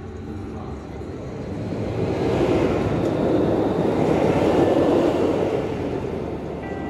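Empty West Coast Racers roller coaster trains running on the steel track during test runs, a rolling rumble that builds about two seconds in, is loudest around four to five seconds, and fades as the trains pass.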